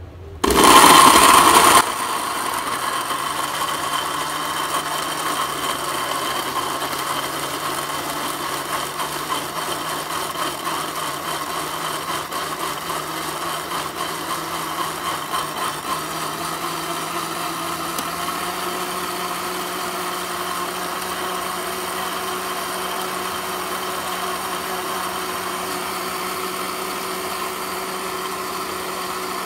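DLC countertop blender switched on and blending red fruit into a purée. It starts with a loud burst for about a second as the blades meet the chunks, then runs steadily, its hum rising slightly in pitch around halfway through as the mix turns smooth.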